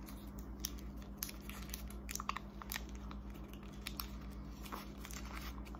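Close-miked chewing and crunching of candy: irregular crisp clicks and crackles from the mouth, over a steady low hum.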